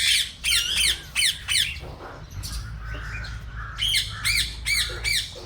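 Caged birds in an aviary squawking: rapid runs of short, high, repeated calls, one at the start and another from about four seconds in, with a lull between.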